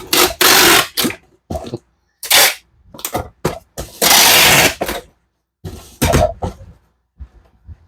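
Packing a shipping box by hand: several loud rasping strokes, the longest about a second long near the middle, with shorter rustles and knocks between them.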